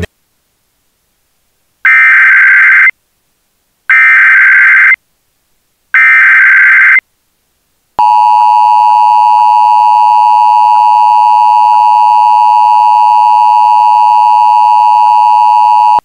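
Emergency Alert System activation for a Hazardous Materials Warning. About two seconds in come three one-second bursts of SAME digital header data, a harsh warbling screech, each about a second apart. About eight seconds in, the steady, loud two-tone EAS attention signal starts.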